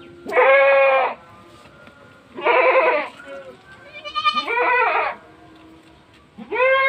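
Goats bleating: four loud, wavering bleats, each under a second long, about two seconds apart.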